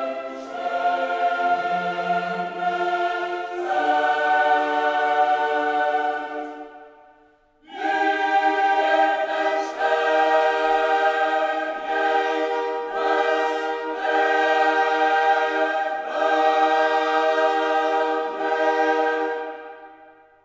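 Background music of choir-like voices holding long, sustained chords. It fades away about seven seconds in, comes back a moment later, and fades out again near the end.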